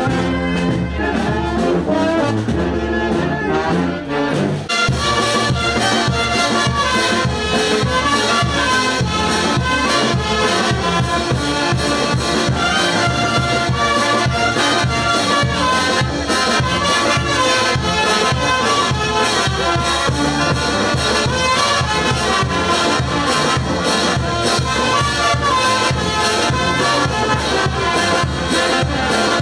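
Brass band with sousaphones playing festive street music. About five seconds in, the sound cuts to another passage with a steady, even beat under the brass.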